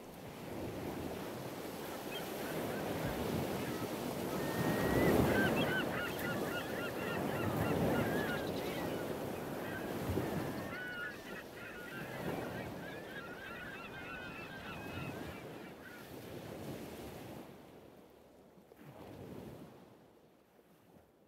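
Surf and wind rushing steadily, swelling and ebbing like waves. A flock of birds calls over it in a rapid honking chatter that starts about four seconds in and dies away after about sixteen seconds. Near the end everything fades out.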